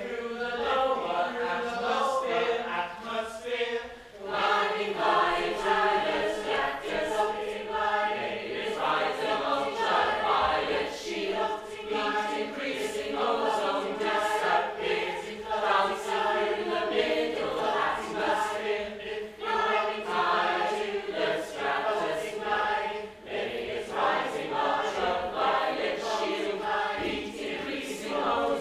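Several voices singing together in a choir-like chant, with a couple of short breaks between phrases.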